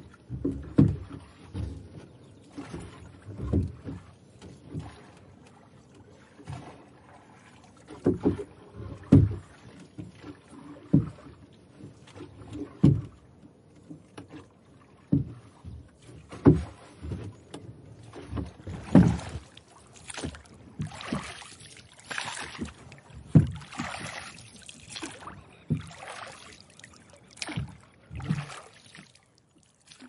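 Paddles stroking through calm water: irregular low splashes and swishes every second or two, with brighter splashing in the later part.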